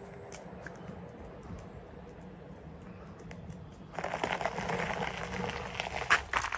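Quiet outdoor background, then from about four seconds in, footsteps crunching on a gravel lane.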